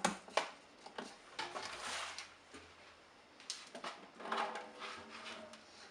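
Handling noise as a cardboard packing insert is worked out of a shop vacuum's tank: a few sharp knocks, then rustling and scraping.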